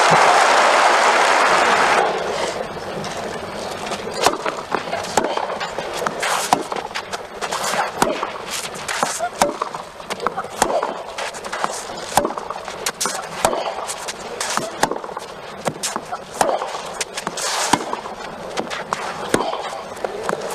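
Crowd applause that stops about two seconds in, followed by a clay-court tennis rally: sharp racket strikes on the ball and ball bounces, one every second or so, over crowd hum.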